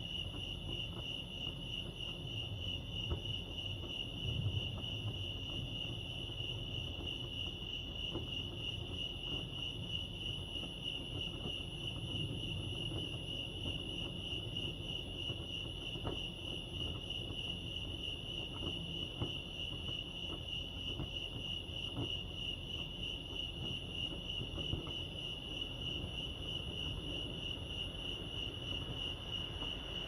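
Crickets chirping in a continuous, steady high trill, over a low background rumble.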